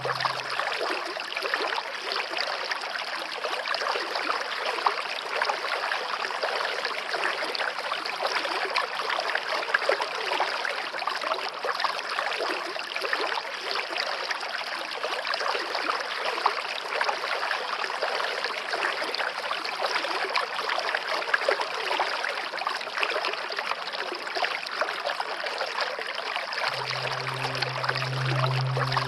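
Running water of a stream, flowing steadily and evenly. Low sustained music tones fade out about a second in and return near the end.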